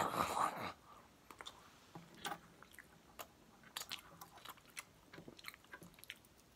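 Close-up chewing and biting: scattered short, crisp clicks and crunches of food in the mouth, with a brief louder burst at the very start.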